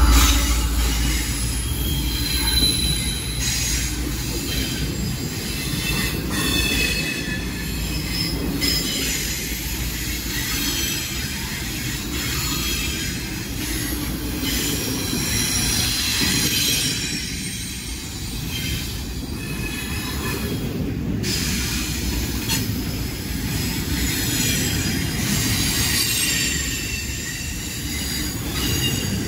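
Freight train cars rolling past with a steady low rumble, their wheels squealing against the rails in high tones that come and go.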